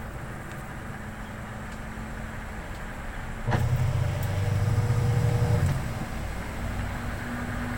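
Samsung washing machine's spin motor running on a newly fitted drive belt, with a steady low hum. About three and a half seconds in there is a click, and the hum grows louder for about two seconds before settling back.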